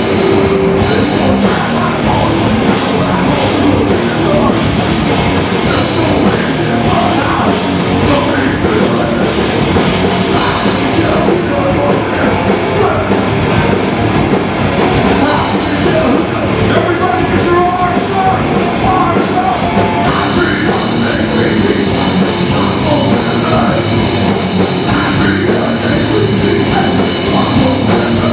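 Heavy metal band playing live: electric guitars over a drum kit, loud and dense.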